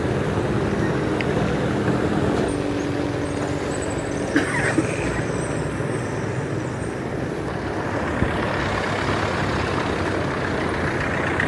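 A motor vehicle's engine running steadily amid street traffic noise, with two short knocks about four and a half seconds in.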